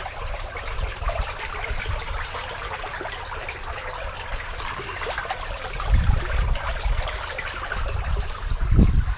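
Irrigation water running steadily at a low, end-of-season flow, with a couple of low rumbles about six and nine seconds in.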